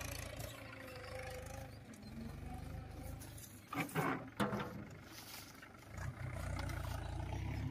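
Farm tractor's diesel engine running steadily as it pulls a loaded trailer, getting louder about six seconds in. A few brief loud sounds stand out about four seconds in.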